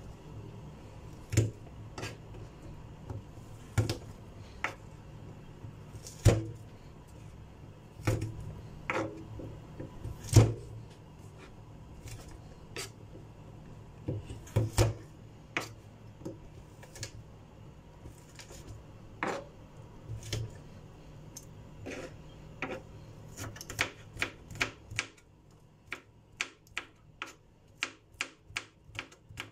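Kitchen knife slicing garlic cloves on a cutting board: scattered knocks of the blade on the board, then a quicker, even run of chops, two or three a second, near the end.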